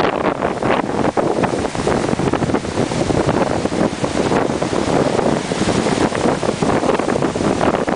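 Heavy storm surf breaking over rocks and against a harbour wall, under strong wind buffeting the microphone.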